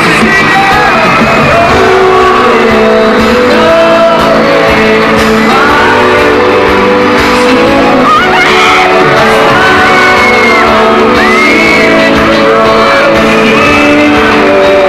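Live pop band and lead vocal playing loud through an arena PA, with the audience screaming and singing along, heard from among the crowd.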